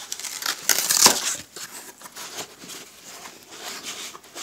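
Cardboard shipping packaging being handled: irregular scraping and crinkling as a boxed set is worked out from between the cardboard layers, loudest about a second in.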